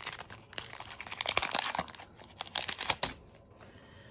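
Foil wrapper of a Pokémon booster pack being torn open and crinkled in the hands, a dense crackling that stops about three seconds in.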